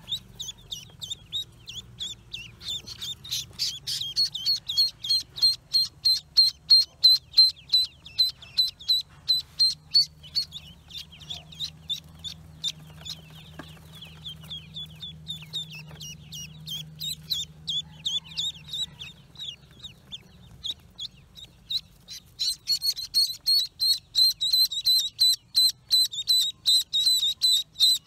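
Ducklings peeping: a rapid run of short, high-pitched peeps, several a second, that eases off for a few seconds about two-thirds through and then comes back thick near the end.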